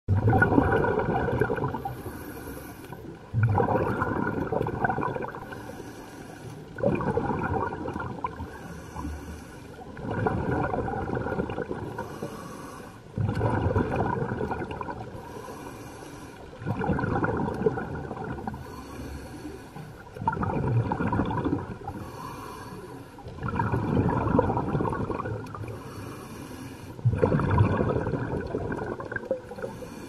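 Scuba diver breathing through a regulator, heard underwater: a short high hiss on each inhale, then a loud rush of exhaled bubbles that fades away. It repeats about every three and a half seconds, nine breaths in all.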